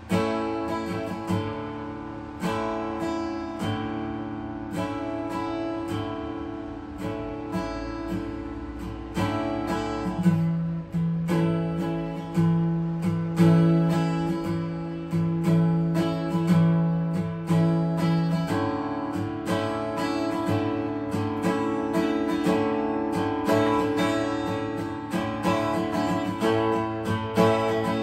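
Acoustic guitar played solo, chords strummed and picked one after another, each ringing on and fading before the next.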